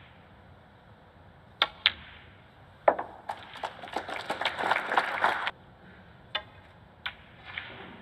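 Snooker cue tip striking the cue ball and the click of balls meeting, then a short round of audience applause lasting about two seconds; a few more single ball clicks near the end.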